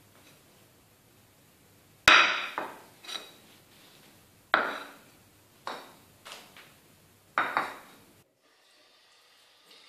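Ceramic dinner plates knocking against the kitchen counter and each other as plates of buckwheat are set down, in seven sharp clunks with short ringing tails, the first the loudest. Near the end they stop and only quiet room tone remains.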